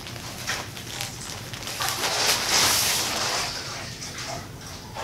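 Plastic poly mailer bag and clothing rustling and crinkling as a package is unpacked, loudest about two to three seconds in.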